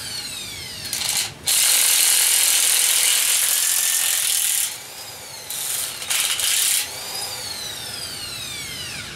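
Old Makita electric impact wrench hammering on a stubborn engine bolt in two bursts: a long one starting about a second and a half in, then a short one about six seconds in. After each burst the motor's whine falls away as it winds down.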